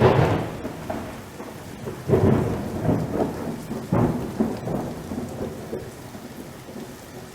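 Strong gusting wind buffeting the microphone, in heavy surges about two seconds apart that die down toward the end.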